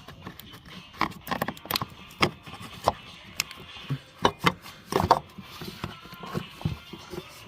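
A run of irregular sharp clicks and knocks, as of hard objects being handled and set down, loudest between about one and five seconds in.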